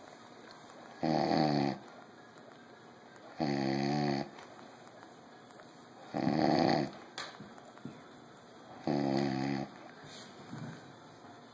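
A man snoring: four loud, pitched snores, each under a second long, coming about every two and a half to three seconds with quiet breathing gaps between.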